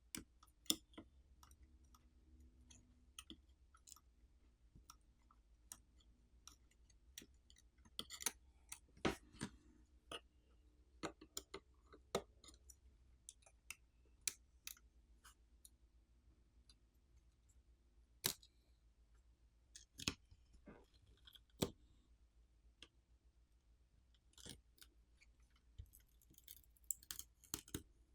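Irregular small sharp clicks and taps of hand tools working on a tablet's internal parts, as cables and connectors are unhooked. There is a brief scratchy scraping near the end.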